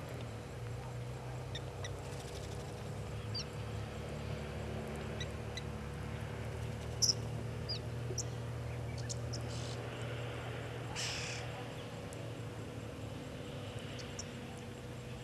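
Outdoor bush ambience with scattered short, high bird chirps and calls over a steady low hum.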